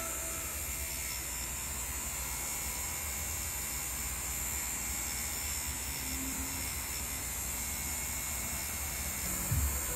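Cartridge tattoo machine buzzing steadily as the needle runs, lining a tattoo. Low musical notes come in near the end.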